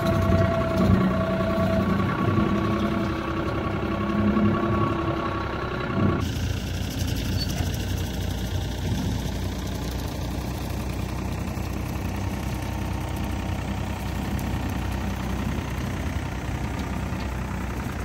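Farm tractor engine running under load while driving a rotary cutter mowing grass. It is heard close up with steady whining tones at first, then after a cut about six seconds in it is a steadier, more distant engine sound.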